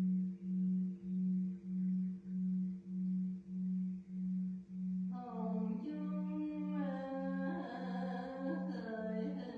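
Great Buddhist temple bell (đại hồng chung) humming in its long decay, a low tone throbbing about twice a second with fainter higher overtones. About halfway through, a voice begins singing over the hum.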